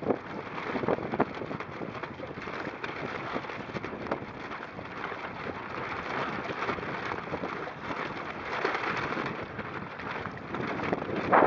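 Wind-blown spray and chop hitting a sailing kayak's bow deck and hull: a continuous rushing hiss crackling with droplet hits, rain-like, with a louder splash near the end.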